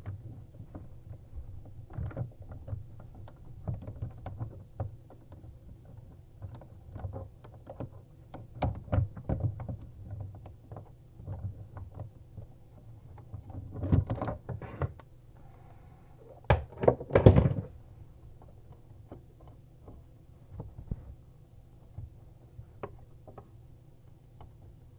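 Scattered clicks, knocks and scrapes of a hand tool on metal as an old faucet's retaining nut is worked loose from underneath a bathroom sink, with a few louder knocks about two thirds of the way through.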